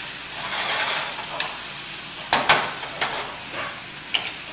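Chicken frying and sizzling in a pan as it is stirred, with a utensil knocking sharply against the pan a couple of times in the middle and once more near the end.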